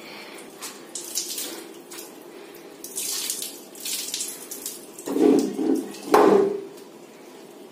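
Water splattering onto a tiled bathroom floor as it is wrung by hand out of a soaked cat's fur, coming in uneven gushes. Two louder bursts come about five and six seconds in.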